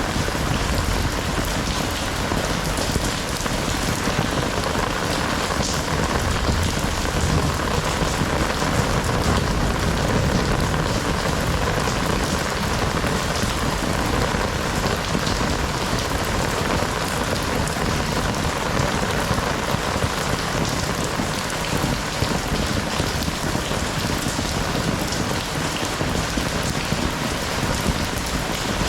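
Heavy rain falling steadily and pattering on surfaces, a dense even hiss with no letup.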